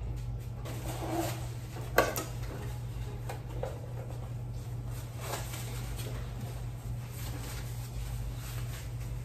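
Packing sounds: a black cardboard gift box and a plastic-wrapped item being handled and set into place, with light rustling and small clicks and one sharp knock about two seconds in. A steady low hum runs underneath.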